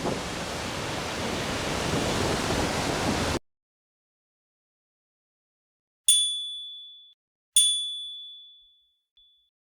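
Rushing waterfall noise cuts off abruptly about three seconds in. After a few seconds of silence, two bright ding chimes ring out and fade, about a second and a half apart, with a faint third tone near the end.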